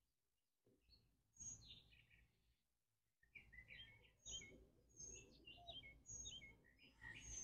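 Faint birds chirping: short high notes, a few at first and then a quick run of them from about three seconds in.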